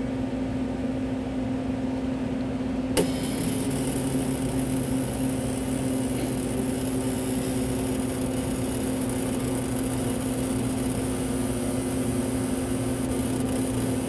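A/C refrigerant recovery machine running steadily while it pulls the refrigerant out of a car air-conditioning system. About three seconds in there is a click, and a hiss and a second, lower hum join in. It is drawing only a small leftover amount of refrigerant from a system that is nearly empty.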